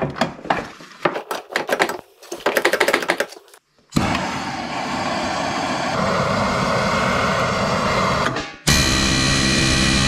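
Handheld gas torch flame hissing steadily for about four seconds as it heats the hub of a seized snowmobile secondary clutch to free it from its shaft. Before it comes a quick run of knocks and clatter, and near the end a louder steady buzz.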